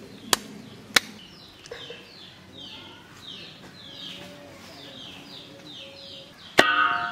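Butcher's blade chopping a hanging goat carcass: two sharp chops in the first second, then a louder chop with a brief metallic ring near the end. In between, a bird repeats a short falling chirp a few times a second.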